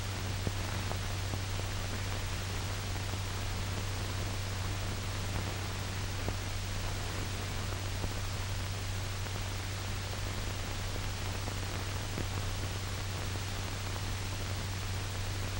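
Steady hiss and low hum of an old 1940s film soundtrack, with a few faint clicks.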